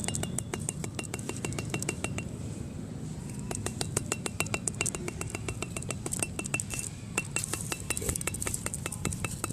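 Rapid light clinking taps, several a second, many with a short high ring, as baking soda is tapped into the neck of a bottle.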